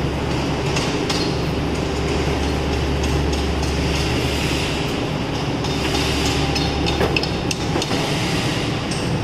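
PUR laminating line running: a steady low machine hum with the rattle of a panel travelling over the roller conveyor and scattered sharp clicks and knocks, more of them in the second half.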